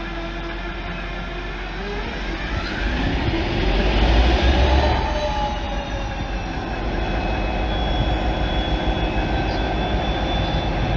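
Class 57 diesel locomotive's two-stroke EMD V12 engine powering up: its note rises in pitch over a couple of seconds, peaks in loudness about four to five seconds in with a cloud of exhaust smoke, then runs steadily at higher power.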